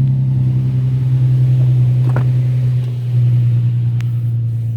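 Infiniti G35's V6 engine idling with a steady low hum.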